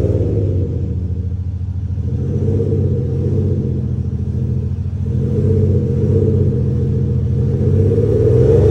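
Range Rover Velar running with an Xhaust sound booster, which plays an artificial exhaust note through a speaker: a deep rumbling engine note that eases off after about a second and builds again from about five seconds, loudest near the end, as the revs change.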